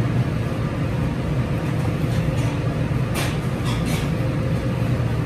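Steady low hum of commercial kitchen equipment, with a couple of faint short scrapes about three and four seconds in as a knife slices through roast turkey breast on a plastic cutting board.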